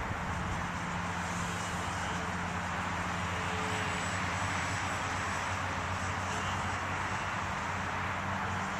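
Small electric motor of a foam flying-wing RC plane buzzing steadily in flight.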